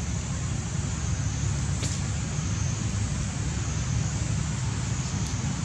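Steady low rumble with hiss, without any distinct events.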